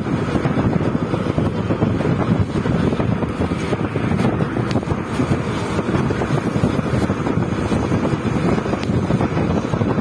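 Wind buffeting the microphone from a moving open vehicle, a steady rumble with road and engine noise underneath.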